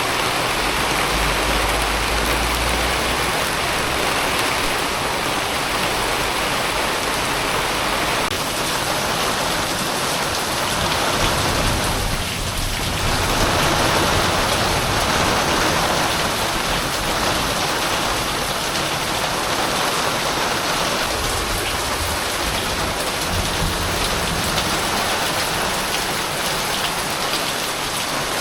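Rain falling steadily in a windy storm, a dense even hiss, with a low rumble for a couple of seconds about a second in.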